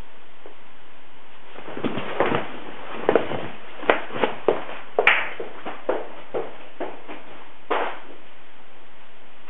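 About a dozen irregular taps and knocks over some six seconds, over a steady hiss.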